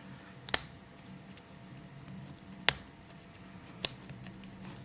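Fingernails picking at the tight plastic shrink wrap on a card-deck box: three sharp clicks with a few fainter ticks between.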